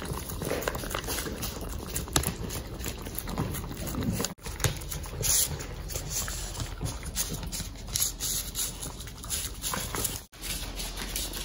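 Cavalier King Charles Spaniels eating blueberries and carrot from paper plates: wet chewing and licking with many small clicks and scrapes. The sound cuts out briefly twice.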